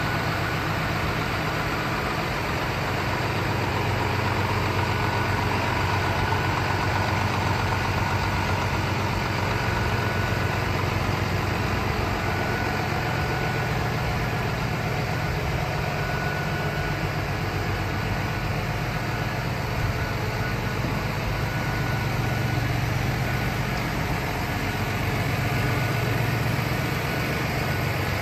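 Scania S450 tractor unit's 13-litre inline-six diesel idling steadily.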